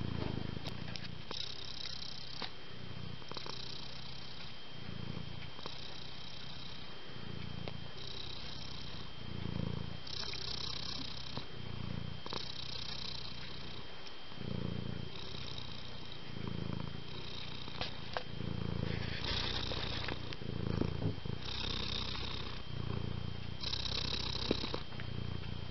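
A domestic cat purring steadily, the low rumble and a higher breathy hiss swelling and fading in turn with each breath, about every one to two seconds.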